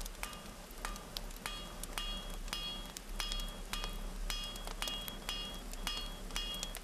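Blacksmith's hammer striking red-hot iron on an anvil horn, about two to three blows a second, each blow leaving a short metallic ring. A low mains hum runs underneath.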